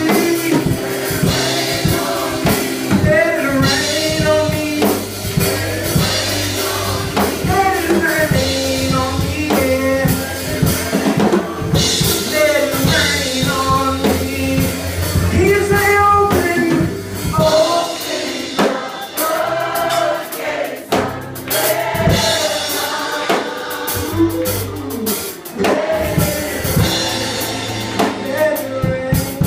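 Live gospel music: a group singing over a drum kit and a bass line, with the low bass dropping out for a few seconds past the middle.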